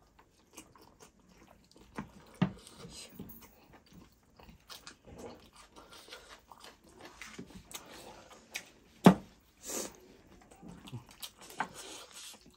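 Close-up eating sounds from chicken and rice eaten by hand: chewing, crunching and wet mouth clicks scattered through, with the sharpest, loudest crunch about nine seconds in.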